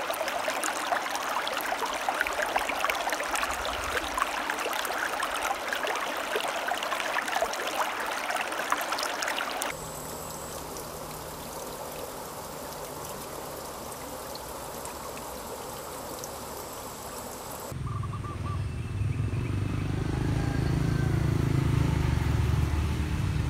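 Water trickling and splashing over rocks in a shallow stream, a dense crackle for about the first ten seconds, then a quieter steady running sound. From about eighteen seconds a low rumble comes in and grows louder.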